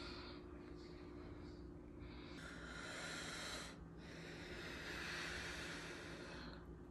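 Two long, hissing breaths close to the microphone, the first about two and a half seconds in and the second longer one just after it, over a faint steady low hum.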